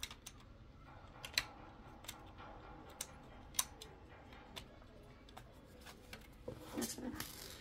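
Faint scattered clicks and taps of a plastic antenna cover and a metal mini-PC case being handled and fitted together, with a brief cluster of louder clicks and scraping near the end.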